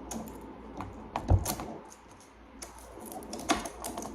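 Plastic magnetic building blocks clicking and clacking as they are handled and snapped together, in irregular sharp clicks; the loudest, about a second in, has a dull thump under it.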